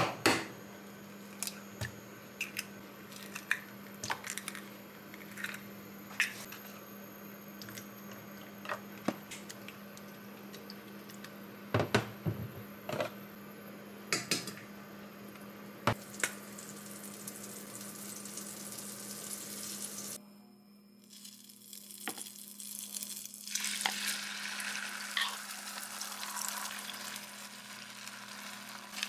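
Scattered clicks and knocks of kitchen utensils and packages being handled over a steady low hum. After a cut, beaten egg sizzles in a hot frying pan while it is stirred with chopsticks, the sizzle building in the later part.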